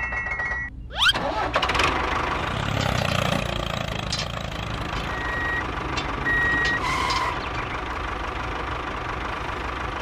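Dubbed-in tractor engine sound effect: after a short whoosh, an engine sound starts about a second in and runs steadily, with two short high beeps near the middle.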